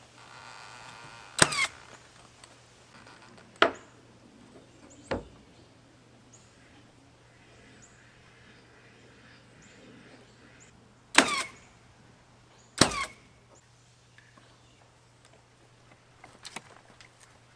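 Five sharp knocks from carpentry fastening at uneven intervals, from a hammer or nail gun. The first comes about a second and a half in, and two loud ones come close together past the middle, each with a brief ringing tail.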